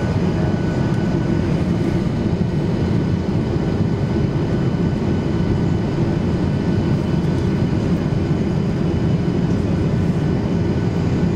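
Steady cabin noise of a Boeing 737-800 in flight, heard from a window seat: the low, even rush of airflow and engines, with no changes in power, while the jet descends through cloud on its approach.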